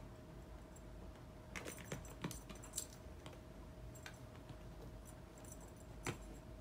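A kitten playing with a wand-toy lure on carpet: a quick run of light taps and rattles as it pounces, between about one and a half and three seconds in, then one sharper knock near the end as it leaps at a cardboard scratcher. A faint steady hum lies underneath.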